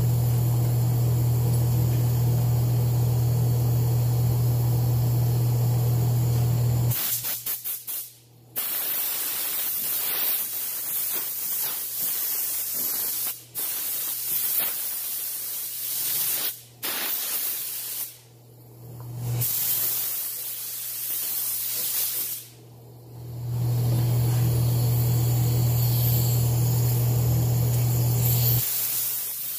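Gravity-feed spray gun spraying clear coat: a steady hiss of air and paint in several passes, each broken by a brief stop as the trigger is let off. Before and after the spraying there is a steady low hum.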